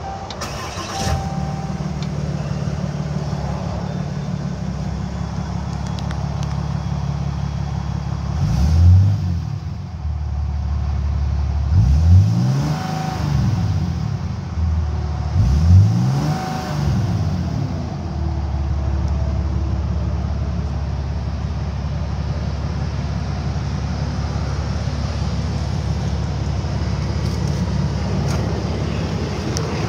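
Cummins straight-six turbo diesel in a Ram pickup, started by push button about a second in and idling, then revved three times with the pitch rising and falling each time, and settling back to a steady idle.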